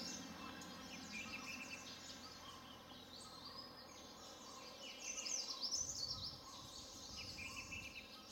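Faint high chirps and twitters of small birds, with a busier run of notes about five seconds in.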